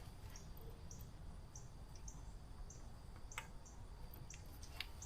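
Faint, short, high chirps of a small bird, repeating about every half second, over a low steady rumble, with a single sharp click about three and a half seconds in.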